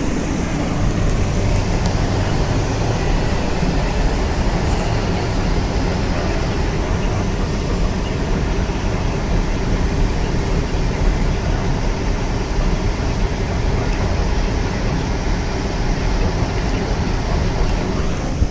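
Blizzard wind buffeting the microphone: a loud, steady rushing roar with a fluttering low rumble.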